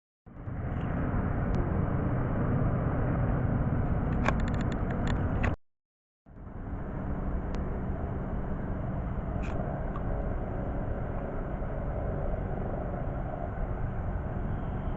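Steady rumbling outdoor noise with no voices, cut off briefly twice by silent gaps, with a quick run of clicks about four seconds in.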